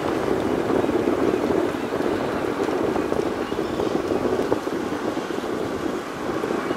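A steady, gusty rushing noise: wind buffeting the microphone, mixed with the low running of a car ferry's engines and the churn of its propeller wash as it manoeuvres.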